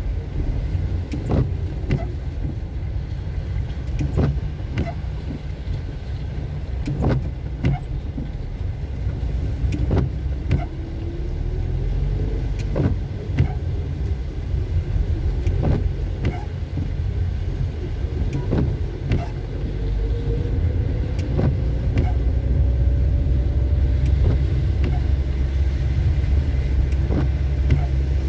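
Car running in rain, heard from inside the cabin: a steady low engine and road rumble with scattered sharp ticks. A faint engine note rises twice, about ten and twenty seconds in.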